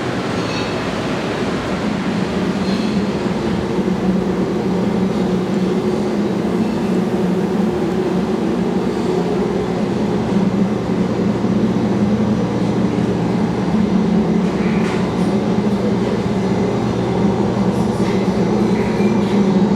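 Steady mechanical drone with a low, even hum, typical of ventilation or machinery running inside a ship's steel compartments.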